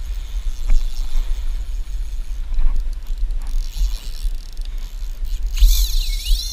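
Deep, uneven rumble of wind and boat noise on an action-camera microphone. About five and a half seconds in, a high whine starts and rises and falls in pitch. This is a fly reel's drag paying out line to a running fish.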